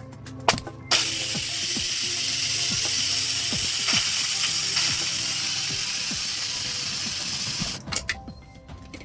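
Instant Pot's pressure valve venting steam in a steady, loud hiss for about seven seconds after a click, then cutting off suddenly: the pot releasing its pressure after pressure cooking.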